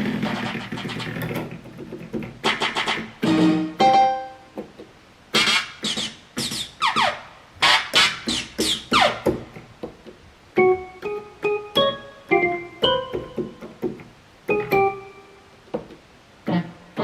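Yamaha PSR-350 home keyboard playing its DJ-set voice, one sampled sound per key: short separate hits, several of them sweeping down in pitch in the middle, then short pitched blips.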